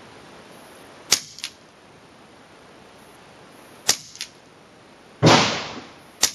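FX Revolution .22 PCP semi-automatic air rifle fired three times at an unhurried pace, each sharp crack followed about a third of a second later by a fainter second crack. Between the second and third shots there is a louder rushing noise, about five seconds in, that fades away in under a second.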